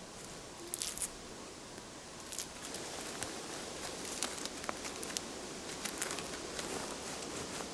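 Kindling twigs crackling and snapping over a soft rustle. Two sharp snaps come about a second in, and the crackles grow more frequent from about two and a half seconds on.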